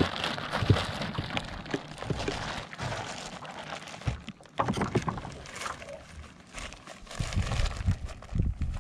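Water splashing and slapping against a stand-up paddle board moving under a small sail in strong wind, with wind rumbling on the microphone, heaviest near the end.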